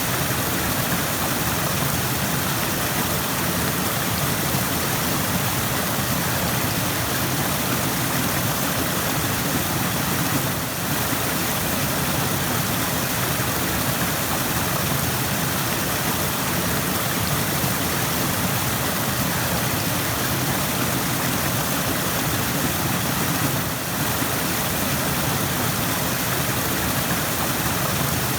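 Rushing stream: water running fast over rocks, a steady, even rush that dips briefly twice.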